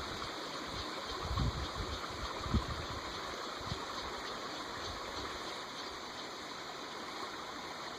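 Creek water flowing steadily over the stream bed, a continuous rushing babble. A soft low thump comes about a second and a half in and another about a second later.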